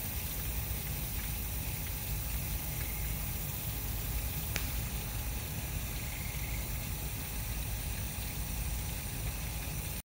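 Backyard stone waterfall running, water pouring steadily down a rock cascade into a swim pond. A single faint click sounds about halfway through.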